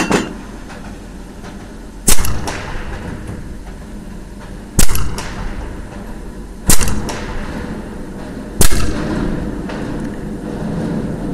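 Edgun Leshiy 2 semi-automatic PCP air rifle in 6.35 mm firing four shots roughly two seconds apart, each sharp crack followed a moment later by a fainter second crack and echoing in the indoor range. A lighter click comes at the very start.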